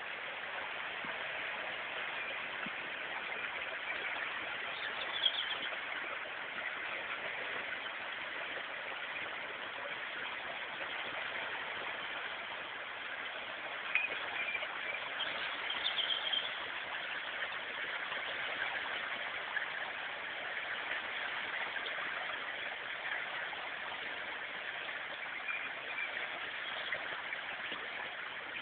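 Swollen river in flood, rushing steadily. Brief high chirps cut in a couple of times.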